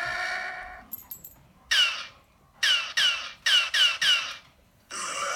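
A sound effect of six short, squeaky chirps, each falling quickly in pitch, in an uneven run. A held tone fades out at the start and another sustained sound begins near the end.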